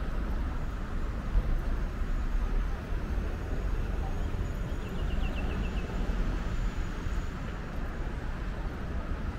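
City street ambience: a steady low rumble of traffic, with a short run of about six quick high chirps about five seconds in.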